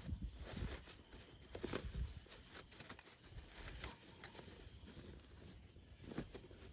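Faint, irregular crunching and a few dull knocks of gravel rock being moved into a drain-pipe trench during backfilling, the strongest near the start, around two seconds in and near the end.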